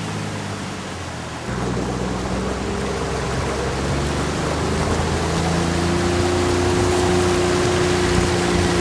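Motorboat engine running, with the rush of water and wind along the moving boat. About a second and a half in it gets suddenly louder as the boat speeds up; the engine's pitch rises for a few seconds and then holds steady.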